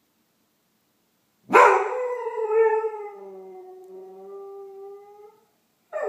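Doberman howling, set off by distant emergency sirens. One long howl starts about one and a half seconds in, loudest at the start and sliding slightly lower as it fades. A second, short howl with a falling pitch begins near the end.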